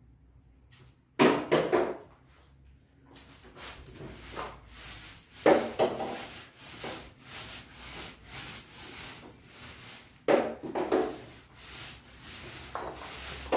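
Paint Racer foam paint roller rolled up and down a plaster wall, making rhythmic rasping strokes, with a few louder strokes about a second in, in the middle and near the end.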